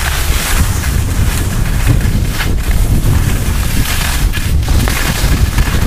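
Wind buffeting the microphone of a moving skier's camera, a loud rushing rumble, mixed with the hiss and scrape of skis sliding and turning on snow, with a few sharper scrapes around the middle.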